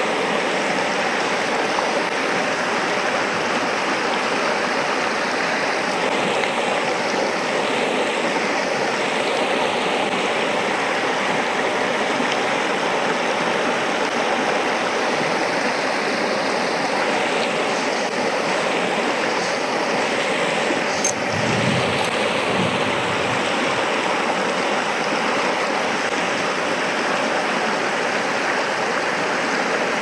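Shallow mountain stream running over stones: a steady rush of water, with a couple of light knocks about two thirds of the way through.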